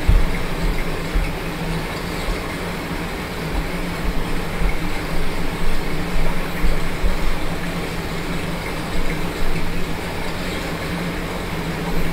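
A small electric fan running, a steady whooshing noise with a low hum and uneven low rumbling where the air blows across the microphone.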